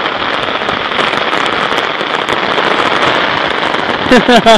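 Rain falling steadily, a dense crackle of many small drops. A voice breaks in briefly near the end.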